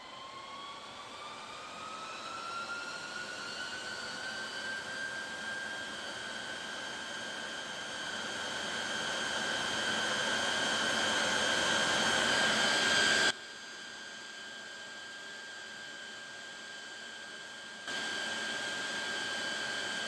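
Cooling fans of an ASUS ESC4000 G2 rack server spinning up: a rising whine that levels off into a loud, steady high-pitched whir and keeps getting louder. About 13 seconds in it drops abruptly to a quieter whine, then steps back up near the end.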